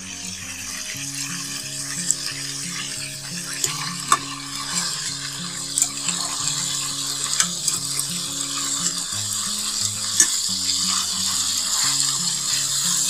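Chicken pieces sizzling as they fry in oil in a metal pan, with a steady hiss, while a metal fork and spoon scrape and clink against the pan several times as the pieces are turned over.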